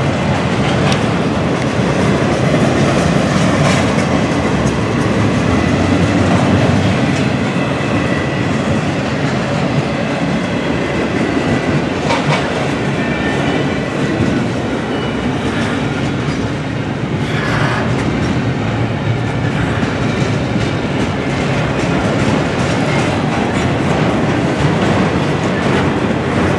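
Double-stack container well cars rolling past close by: a steady rumble of steel wheels on rail, with a few sharp clacks scattered through it.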